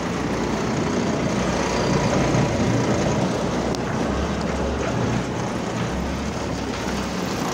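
Engine and drivetrain of an old 6x6 REO cargo truck running steadily, heard from inside the open cab.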